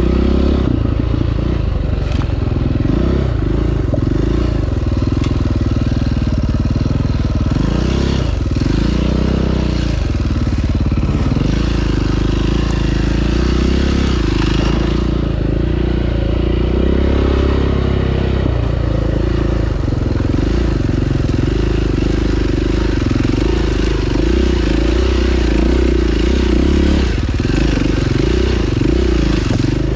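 2009 KTM 530 EXC's single-cylinder four-stroke engine pulling along a trail, revs rising and falling again and again as the rider works the throttle, over a constant rush of wind and riding noise.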